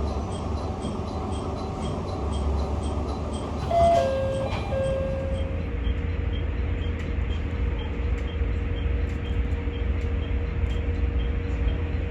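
Local railcar running, with an ATS-Sx electronic warning tone sounding in the cab. About four seconds in, a short tone steps down in pitch and then settles into a steady continuous tone, over a fast regular ticking.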